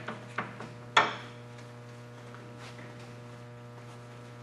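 A few sharp clicks and knocks of hard objects being handled, the loudest about a second in, over a steady electrical mains hum that carries on alone afterwards.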